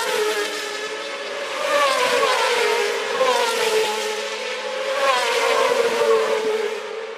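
World Superbike racing motorcycles passing one after another, their high-revving engines rising and falling in pitch as they go through the gears. The sound swells three times as bikes go by.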